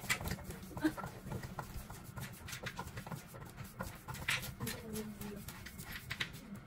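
Irregular clicks and light knocks of black cylindrical legs being twisted by hand into a wooden slatted bed frame.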